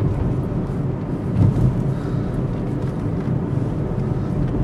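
Steady low hum of a car's engine and tyres heard from inside the moving car, swelling briefly about a second and a half in.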